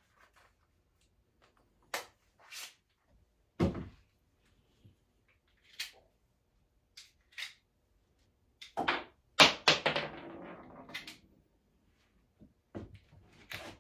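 Handling clicks and knocks as a .68-calibre pepperball launcher is reloaded on a wooden workbench: hard plastic and metal parts tapped, snapped and set down. Single clicks come a few seconds apart, with a louder burst of clatter about nine seconds in.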